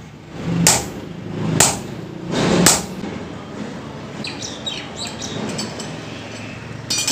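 Hand hammer striking red-hot iron on an anvil three times, about a second apart, followed by light metallic clinks as the iron is handled with tongs.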